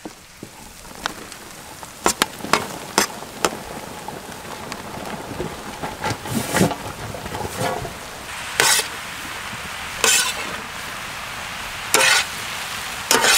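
Sliced mushrooms frying with onion, garlic and spices in hot oil in a large pan: a steady sizzle, with a few sharp clicks in the first few seconds. Later a long metal ladle scrapes through the pan as the mushrooms are stirred in, a stroke every second or two.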